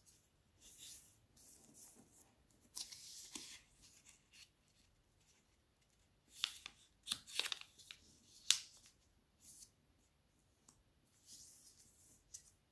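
Origami paper rustling and crinkling as it is folded and its creases are pressed down with the fingers, in short irregular strokes, with a cluster of sharper crackles about halfway through.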